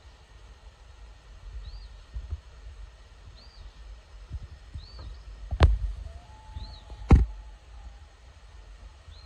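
A short, high chirp repeats about every second and a half over a low rumble. Two loud, sharp knocks come a second and a half apart, past the middle.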